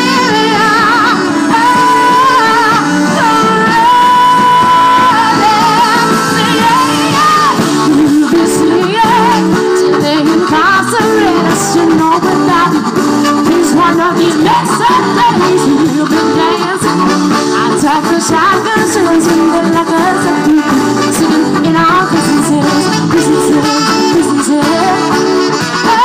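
Live band playing a loud rock-soul number: saxophone, electric guitar, bass guitar and drums, with singing over it.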